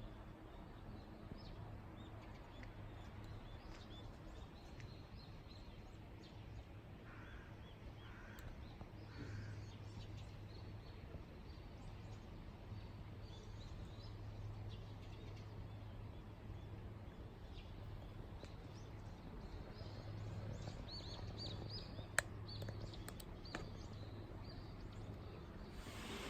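Faint outdoor ambience with scattered bird chirps over a low steady hum, including three short calls about seven to nine seconds in and a single sharp click near the end.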